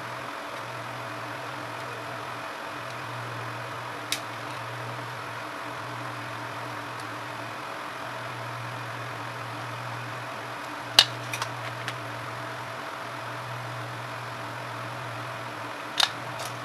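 Steady electrical hum of bench equipment, with a few sharp clicks and taps as the phone and multimeter test leads are handled: one about four seconds in, a small cluster about eleven seconds in, and another near the end.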